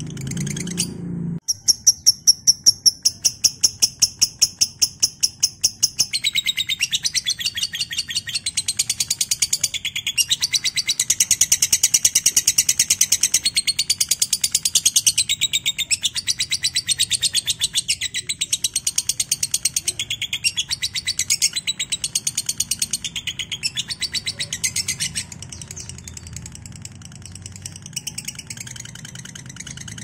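Lovebird chattering in one long, rapid, unbroken high-pitched trill, the 'ngekek' call, that starts abruptly after a second of low hum and runs for over twenty seconds. Near the end it drops to fainter, scattered chirps.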